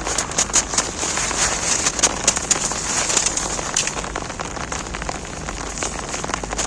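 Steady rain pattering on an umbrella, mixed with many short, crisp crackles of snow being crumbled.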